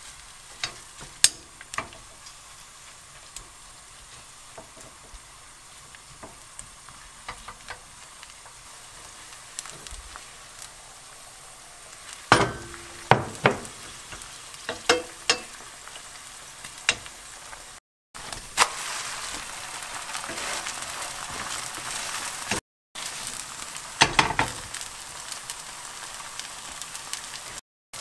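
Kimchi and garlic-chive pancake batter sizzling steadily in hot oil in a nonstick frying pan. A spoon clinks and scrapes against the pan now and then as the batter is spread thin. The sizzle grows louder in the second half.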